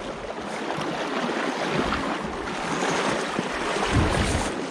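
Water of a shallow stream rushing and splashing around a wading angler's legs, a steady hiss, with a few low rumbles near the end, the strongest about four seconds in.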